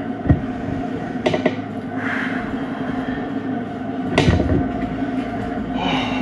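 Stationary exercise bike whirring steadily under pedalling, with a few knocks, the loudest about four seconds in.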